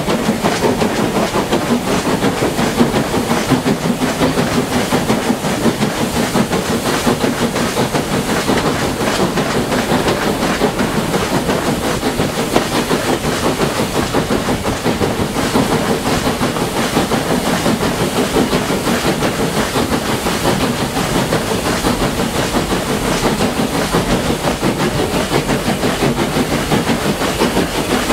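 A steam locomotive hauling a passenger train, heard from a carriage window: steady chuffing from the exhaust over the clatter of the coach wheels on the rails, with no change in pace.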